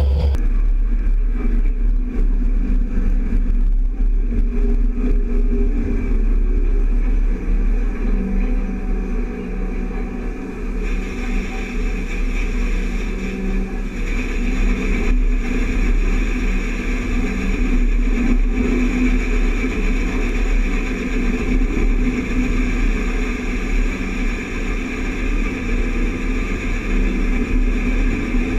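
Steady rumble of a tractor-drawn grain cart rolling through a harvested field. From about a third of the way in, a hiss of grain pouring from a John Deere combine's unloading auger into the cart joins it and keeps going.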